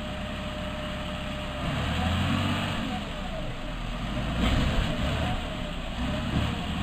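A heavy machine's engine running, rising and falling under load, loudest about four and a half seconds in.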